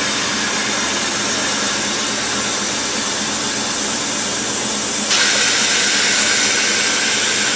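Steady loud hiss of compressed air from a log-truck trailer's air system. It steps up suddenly about five seconds in, louder and brighter.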